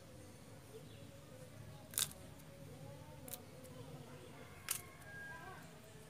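Three sharp clicks, about a second and a half apart, as a small metal pipe fitting and a roll of thread seal tape are handled, with faint bird chirps in the background.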